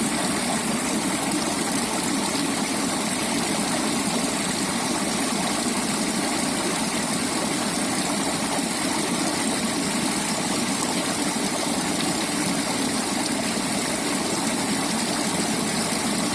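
Small creek flowing, water running and burbling over stones in a steady rush.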